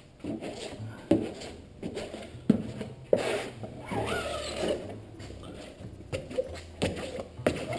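A plastic spreader card dragged over the urethane-coated fabric skin of a skin-on-frame kayak, giving irregular scraping and rubbing with a few sharp knocks, under a low steady hum.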